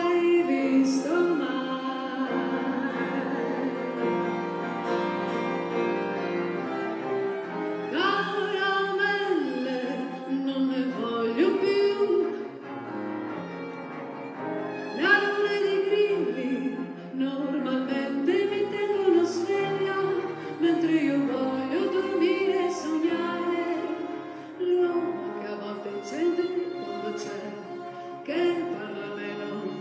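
Live chamber ensemble of piano, two violins, viola and cello playing a song accompaniment, with a woman singing over it.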